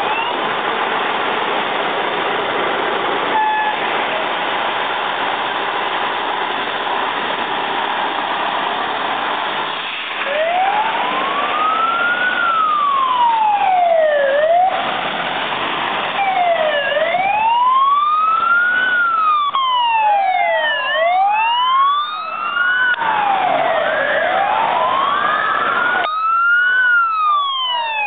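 Fire engine sirens wailing, each slowly rising and falling in pitch, several overlapping from more than one truck. They start about ten seconds in; before that there is a steady rushing noise of the vehicles.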